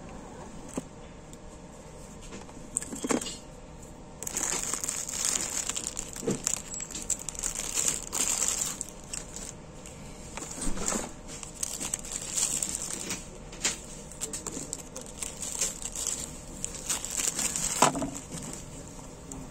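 Clear plastic wrapping crinkling and rustling in bursts as it is handled and pulled off a leather knife sheath, with a few light knocks of the cardboard box and its contents.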